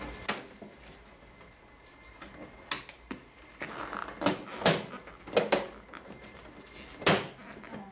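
Sharp plastic clicks and knocks from a Xerox WorkCentre 6605DN laser printer as its side cover hangs open and a black unit inside is unlatched and pulled out by hand. About seven separate clicks, the loudest clustered around the middle and one more near the end.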